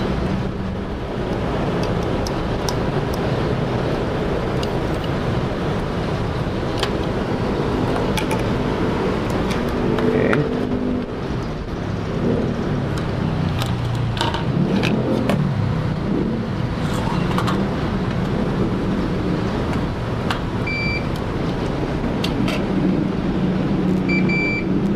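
Steady low background rumble throughout, with scattered light clicks of multimeter probes touching a circuit board. Near the end the digital multimeter gives two short continuity beeps as the probes trace a connection.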